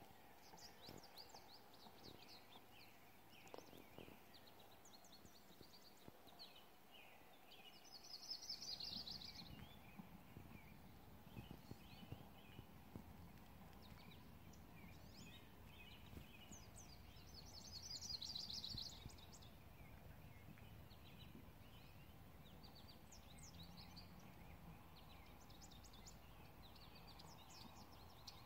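Faint outdoor birdsong: scattered high chirps with two brief, louder high trills, about a third of the way in and again past the middle, over a low steady background rumble that grows a little louder about a third of the way in.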